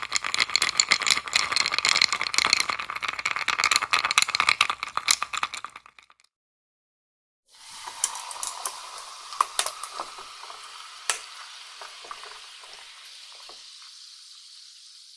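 Melting ice crackling and popping densely for about six seconds, then cutting out. After a short gap a softer fizzing crackle returns, with scattered sharp pops, slowly fading.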